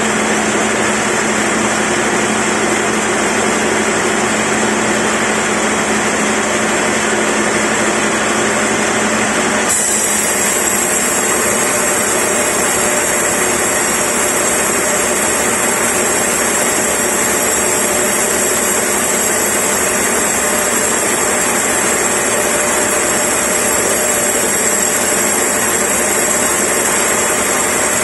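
A sawmill band saw running loud and steady, first with a low hum, then, about ten seconds in, changing abruptly to a brighter sound with a high whine and hiss as the blade cuts lengthwise through a large block of timber.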